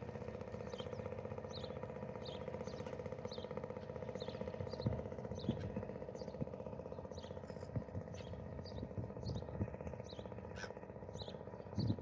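A boat's outboard motor running steadily at a distance, its hum easing somewhat as the boat pulls away, while a bird chirps about twice a second throughout. A few low thumps come and go, the strongest about five seconds in and at the end.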